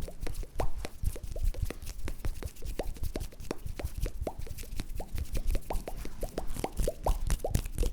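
Close-miked ASMR popping sounds: quick wet plops and clicks, about four a second, each with a short upward flick in pitch.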